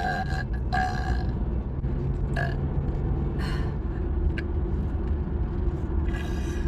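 A woman burping, a low belch.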